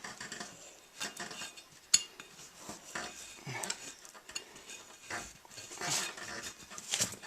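Scattered light clicks and clinks of tools and parts being handled during a tire repair, with one sharper click about two seconds in.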